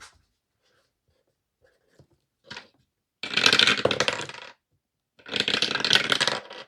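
Small dice clattering as they are rolled: two rattling rolls of about a second each, the second starting about two seconds after the first, with a short click of dice shortly before them.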